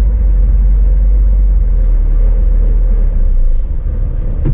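Scania S500 truck's 13-litre inline-six diesel working hard under load as the heavily loaded single-drive-axle rig climbs a steep, wet clay grade, a steady heavy low rumble that eases slightly near the end as the truck fails to make the climb.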